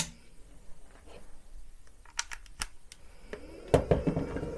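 A sharp click, then a few light handling clicks. About three and a half seconds in, a small 12 V inverter's cooling fan kicks in and runs with a steady hum. The fan starts because the inverter is carrying a 230 V load, which this low-powered unit cannot do without its fan.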